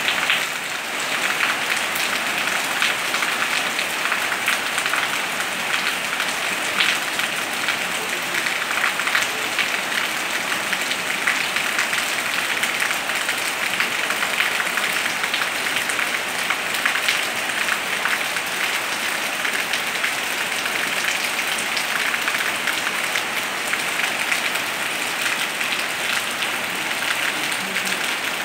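Heavy rain pouring down steadily: a dense, even hiss made of countless fine drop impacts.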